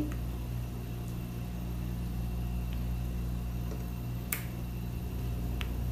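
Steady low room hum, with one sharp click a little over four seconds in and a fainter tick near the end.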